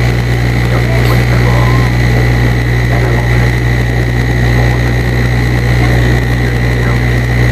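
Turboprop airliner's engines and propellers heard inside the cabin in flight: a steady drone with a strong low hum and a constant high whine.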